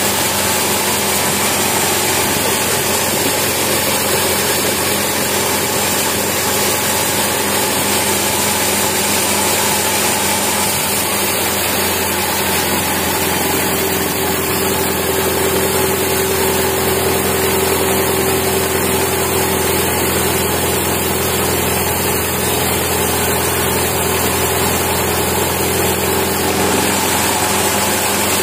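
Large horizontal band sawmill running steadily and loudly, its blade sawing lengthwise through a teak log. A steady higher tone joins about halfway through and drops out near the end.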